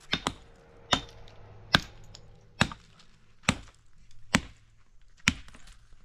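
Repeated blows of a tool on wood, struck at an even pace of a little under one a second: eight sharp strikes, the first two close together.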